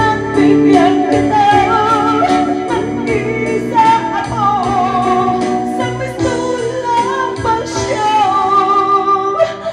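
A woman singing through a microphone in long held notes with vibrato, accompanied by electric guitar; the music eases off near the end.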